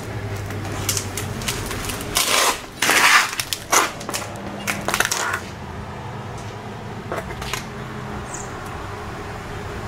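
A cluster of sharp clicks, knocks and clattering for about three seconds, starting a couple of seconds in, over a steady low hum.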